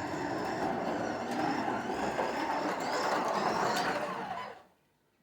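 Carrera Digital 124 BMW M4 slot car lapping the track on soft urethane tires: a steady motor whine that rises and falls, over gear and tire rumble. It stops about four and a half seconds in as the car comes to rest.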